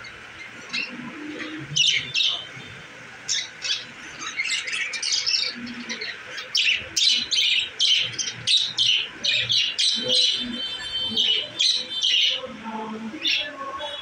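A flock of budgerigars chattering and squawking: many short, sharp calls overlapping one another, sparse at first and much busier from about four seconds in.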